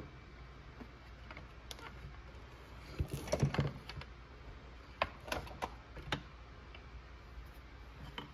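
Scattered clicks and knocks of the Husqvarna 372XP chainsaw's handlebar and housing being handled while the anti-vibration spring is refitted: a quick cluster about three seconds in, then several single clicks a little later.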